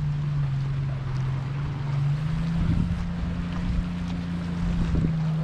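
A steady engine hum that shifts slightly in pitch twice, with wind noise on the microphone.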